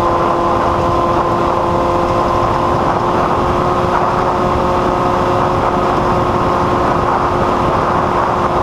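A motor running at a constant speed: an unchanging hum with a few fixed tones over an even rushing noise.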